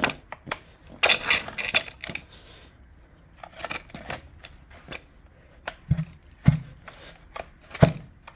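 Used chainsaw parts being handled and put down on a hard surface: a rattling clatter about a second in, then several separate sharp knocks near the end.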